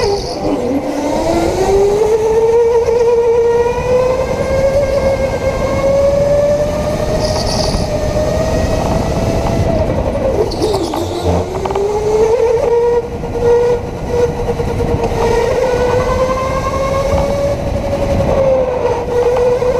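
Indoor electric go-kart's motor whining at speed, the pitch dropping sharply twice, about half a second in and about eleven seconds in, as the kart slows for corners, then climbing again as it accelerates.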